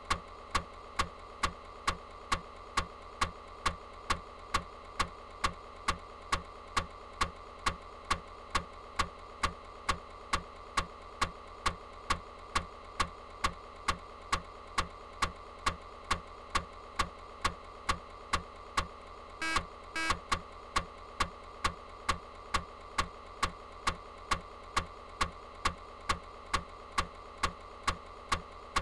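Steady mechanical-sounding ticking, evenly spaced at about two ticks a second, over a constant hum, with a brief buzzing burst about twenty seconds in.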